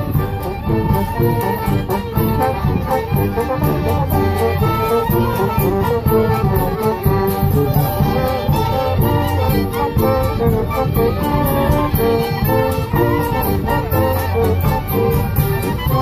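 A street band playing a lively tune together: accordions and clarinet carrying the melody over brass, with a bass drum and snare keeping a steady beat.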